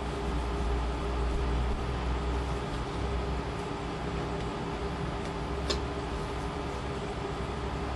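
Steady hiss with a low electrical hum, the background noise of the room and recording, with one light click a little past the middle.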